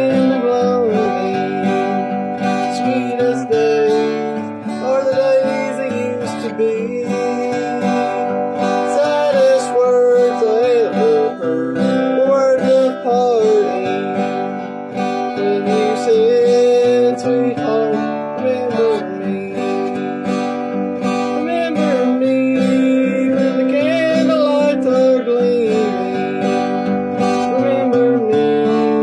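Steel-string acoustic guitar strummed with a pick in a steady country rhythm, with a man singing the melody over it.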